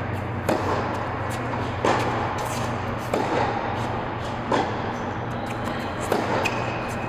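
Tennis ball struck back and forth in a baseline rally: five sharp racket hits, one about every second and a half, ringing in a large indoor hall over a steady low hum.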